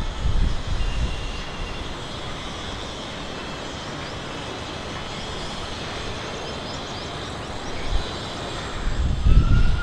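Steady outdoor background noise with a low rumble that swells at the start and again near the end, and a few faint, short high bird chirps near the middle.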